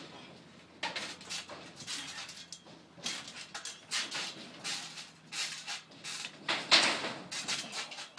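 Irregular rattles and knocks from a corrugated sheet-metal fence as wrestlers climb and stand on it, loudest about seven seconds in.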